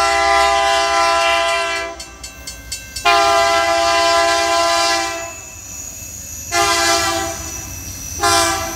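Diesel locomotive's multi-note chime air horn sounding the grade-crossing signal as the train approaches. A long blast ends about two seconds in, then come a second long blast, a short one, and the final long blast starting near the end. A crossing bell rings in the gap after the first blast.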